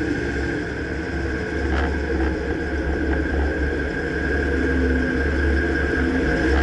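2009 Dodge Ram pickup running, a steady low rumble with a faint click about two seconds in.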